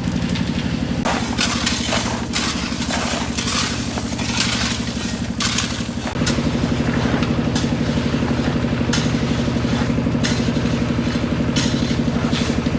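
Engine running steadily with a rapid, even pulse, under irregular scraping and clattering during the first six seconds. About six seconds in, the engine note grows louder and fuller.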